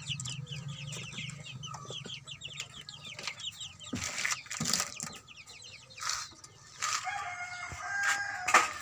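A brooder full of young chicks peeping, a rapid chorus of short, falling high peeps that thins out after the first few seconds. A few knocks come through, and near the end a longer held call from a chicken.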